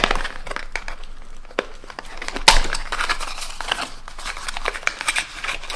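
Small white cardboard box being handled and its tuck-in end flap pried open: scraping and rustling of card against fingers and card, with many small clicks and one sharper crack about two and a half seconds in.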